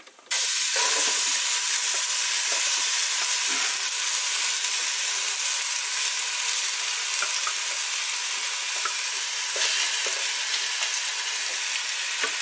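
Wet curry paste hitting hot coconut oil in a stainless steel pot: a sudden loud sizzle starting just after the start, then steady frying.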